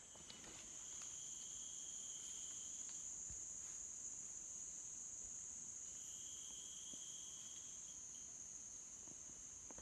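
Insects chirring steadily in a high-pitched chorus, with a second, lower-pitched trill that sounds for about three seconds at the start and comes back for about two seconds after the middle.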